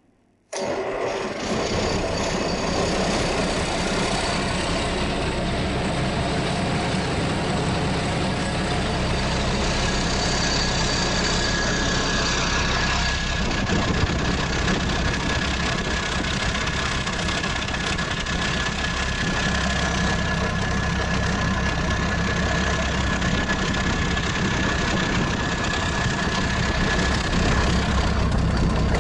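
Freshly rebuilt diesel engine idling steadily and evenly, its sound starting abruptly about half a second in, with a faint thin whine through the middle. It runs with its turbocharger not connected and without coolant.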